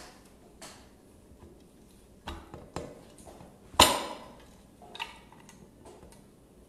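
Metal parts of a circular saw clicking and clinking as the armature is worked into the gear housing, with one sharper ringing clink about four seconds in.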